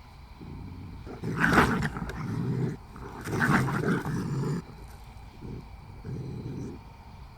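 Deep, rough, animal-like growling: two loud growls of about a second and a half each, the first starting about a second in and the second about three seconds in, with shorter quieter growls before and after them.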